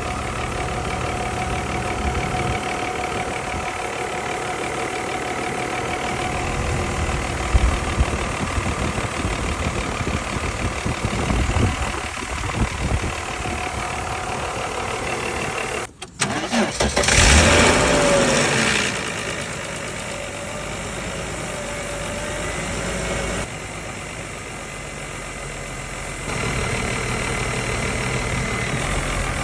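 Mercedes C36 AMG's straight-six engine idling, then starting again about halfway through: a brief crank, a loud catch with a rising whine, and it settles to idle. This is the start-up tick noise the owner is checking.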